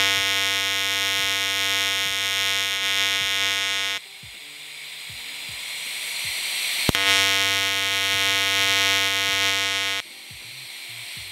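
Pulsed TIG welding arc from an EWM Picotig 200 AC/DC at 60 amps with the pulse set high at 100, giving a loud, steady buzz. The arc is struck twice for two tack spots of about three to four seconds each, the second starting about seven seconds in, with a softer hiss between them.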